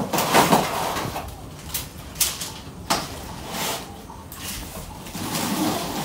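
Plastic packing straps scraping and rustling against a cardboard refrigerator box as they are pulled off, with a few sharp knocks.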